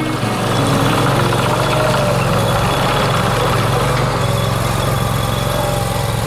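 Engine of a Vermeer S450TX stand-on mini tracked loader running steadily while it moves dirt.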